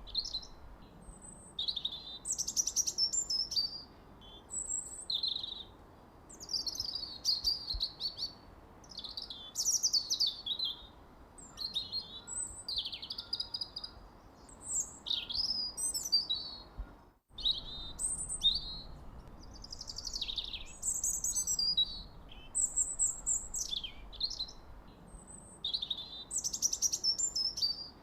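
A songbird singing short, quick phrases of high chirps and downward-sweeping notes, one after another every second or two, over a faint steady hiss. The song breaks off for a moment about two thirds of the way through.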